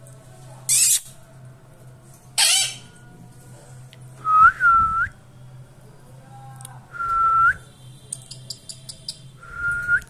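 Indian ringneck parakeet giving two short, harsh screeches, followed by four clear, level whistles that each flick upward at the end.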